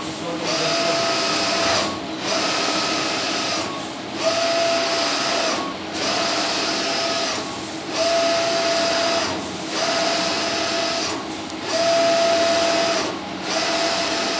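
Large-format inkjet flex-banner printer running a print job: its print-head carriage whirs across the media in passes of about a second and a half, each with a steady tone, and dips briefly at each reversal, about one pass every two seconds.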